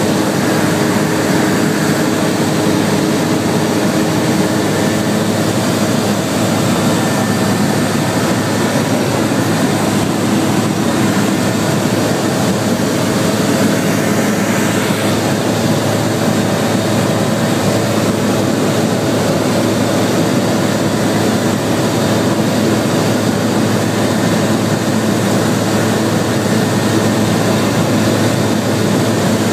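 Zenair 601 light aircraft's piston engine and propeller running steadily in flight, heard from inside the cockpit, with a constant hiss of air over the airframe.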